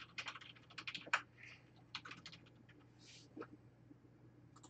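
A quick run of faint clicks and taps through the first two and a half seconds, then a few scattered clicks, over a faint steady low hum.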